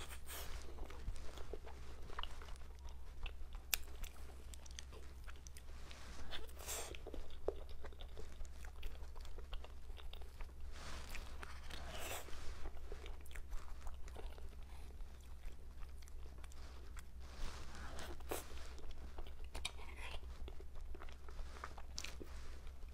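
A person eating cake close to the microphone: irregular bites, crunches and chewing, over a steady low hum.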